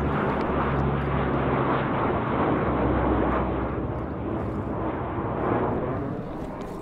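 Airplane flying overhead: a steady engine drone that slowly fades as it passes.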